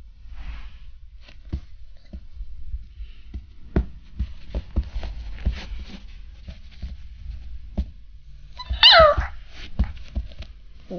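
Siberian Husky puppy giving one short, high-pitched cry that falls in pitch, about nine seconds in. Around it are soft taps and scuffs as a hand and the puppy's paws play on the carpet.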